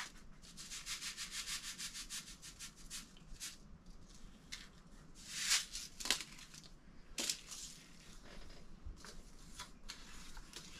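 Faint, quick scratchy rubbing, a rapid even run of strokes for the first three seconds or so, then a few separate light taps and clicks.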